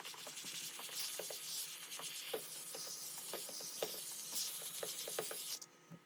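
Scrubbing and rubbing on fabric: an uneven hiss with scattered light clicks, cutting off abruptly near the end.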